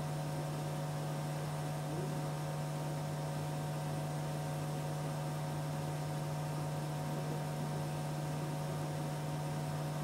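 Steady electrical hum over a background hiss: one constant low drone with a few fainter higher tones, unchanging throughout.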